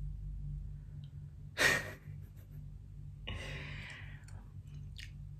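A man sighs sharply about one and a half seconds in, then lets out a longer, softer breath near the middle. A low steady hum runs underneath.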